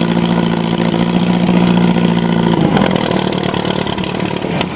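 Portable fire pump's engine running at a steady pitch, its note dropping away a little over halfway through.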